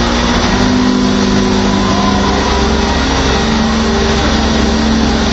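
A vehicle engine running steadily and loudly, with a constant noisy din over it.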